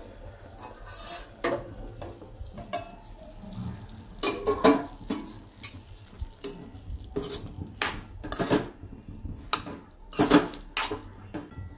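Water splashing and steel clanking as a water-filled steel plate is lifted off a kadai. Then a steel spoon clinks and scrapes against the kadai while stirring the steamed potato cubes. Sharp knocks come at irregular moments, loudest about four and a half and ten seconds in.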